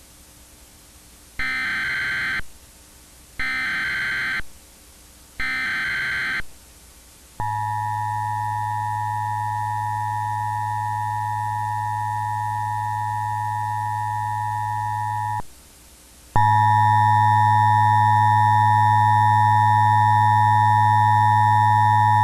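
Emergency Alert System tones: three one-second bursts of screeching SAME header data, then a steady electronic attention tone. The tone runs about eight seconds, breaks off for a second, and comes back louder and harsher.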